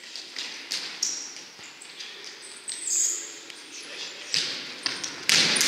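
Futsal play on an indoor court: the ball struck and bouncing in a string of sharp knocks, sneakers squeaking briefly on the floor, and players' voices, echoing in a large hall. The loudest knock comes near the end.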